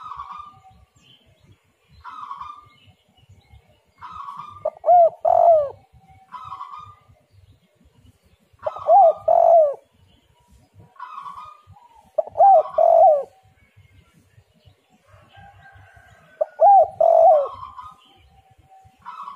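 Spotted dove cooing in repeated phrases: a softer, higher note followed by a loud, low two- or three-note coo, about every four seconds, four loud coos in all.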